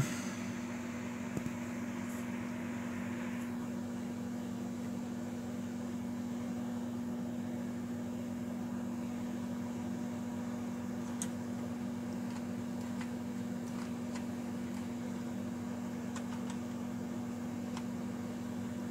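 Steady low machine hum with faint hiss: room tone. A couple of faint clicks come about a second and eleven seconds in.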